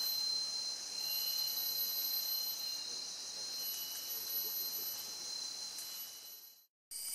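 Steady chorus of forest insects: a continuous high-pitched buzzing hiss with a held whine and fainter chirping tones coming and going. It fades away shortly before the end.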